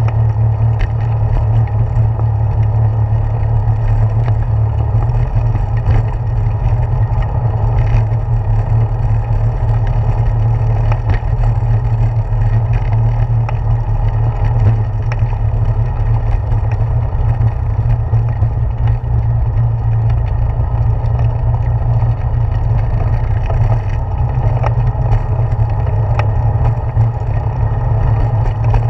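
Bicycle tyres rolling over the planks of a wooden boardwalk, picked up through a handlebar-mounted GoPro: a loud, steady low rumble with scattered small clicks and rattles.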